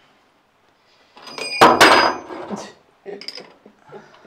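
Metal tools clattering and clinking at a battery bank while cables are fixed to the terminals with a spanner. A loud rattling clatter with a ringing edge comes about a second in, followed by a few lighter clinks.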